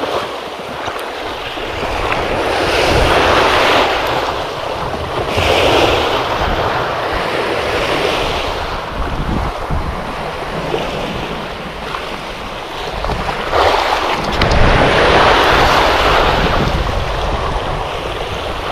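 Small sea waves washing onto a rocky shore, the hiss of the surf swelling and fading several times, strongest about three-quarters of the way through. Wind rumbles on the microphone underneath.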